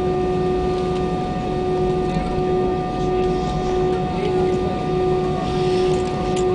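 Airbus A320 cabin noise heard from a window seat: the jet engines running with a low rumble and a steady whine.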